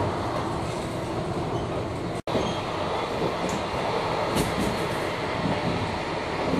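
Running noise of a locomotive-hauled sleeper-train passenger coach heard from inside the coach: a steady rumble of wheels on rail, with a few faint ticks. The sound cuts out for a split second about two seconds in.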